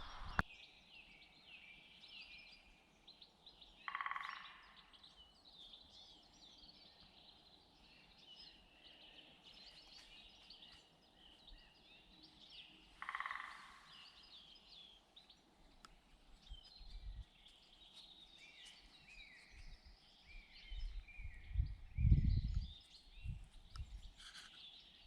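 Wild songbirds singing: a steady chorus of many short, high chirps and trills, with two louder harsh calls about four and thirteen seconds in. Low bumps and rumbles, like wind or handling on the microphone, come in toward the end and are the loudest thing heard.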